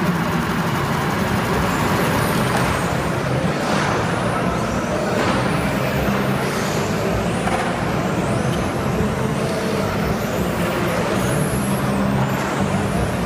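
Steady, loud din of a large exhibition hall: a low machine hum under general noise, with faint high whines that rise and fall.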